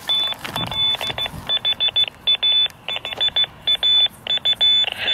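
Hidden fox-hunt transmitter's keyed tone heard through a handheld radio receiver's speaker: quick beeps of uneven lengths, short and long, coming in strong.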